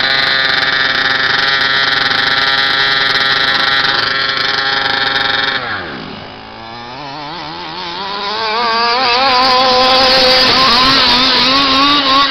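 Two-stroke engine of a gas RC Baja buggy held at a steady high rev. About five and a half seconds in its pitch drops sharply and it goes quieter, then from about seven seconds it revs back up, the pitch wavering up and down with the throttle.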